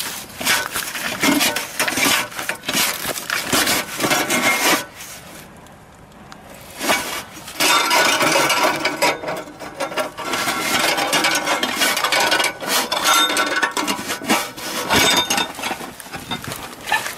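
Irregular scraping, rubbing and clicking of a mobile-home anchor strap being pushed around a steel I-beam and catching on the cardboard underbelly of the trailer, with a quieter pause about five seconds in.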